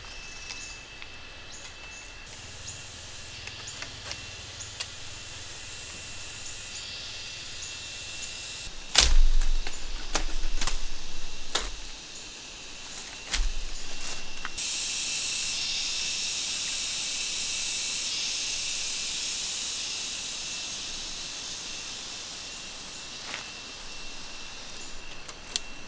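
Forest ambience with a steady high insect drone that swells loud for several seconds past the middle. About nine seconds in, a heavy thud and a few seconds of cracking and rustling, with another thud soon after, as vines and branches are pulled and broken in the undergrowth.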